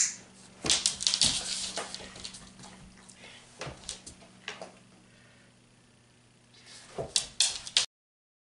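A dog climbing into a hard plastic tub: its claws scrape and the tub knocks and clatters in several bursts, the loudest about a second in. The sound cuts off suddenly near the end.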